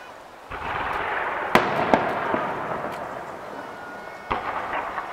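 Aerial fireworks shells bursting. A bang comes about half a second in with a long rumble after it, two sharp cracks follow around one and a half and two seconds in, and another bang comes a little past four seconds.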